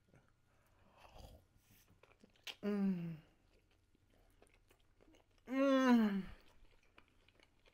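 A person chewing a mouthful of hot dog with soft, wet biting sounds, and humming two long, appreciative 'mmm's that fall in pitch, about two and a half and five and a half seconds in.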